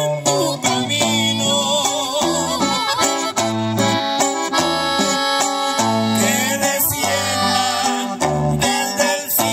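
Live norteño band playing an instrumental passage: an accordion carries the melody over strummed guitar and a moving bass line.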